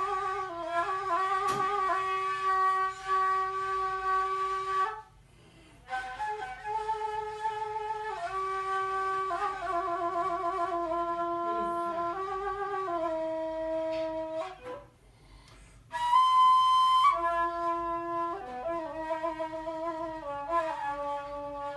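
Kavall, a long wooden end-blown flute, playing a slow melody of held notes with trills. The melody breaks off twice for about a second, and a loud, bright high note follows the second break.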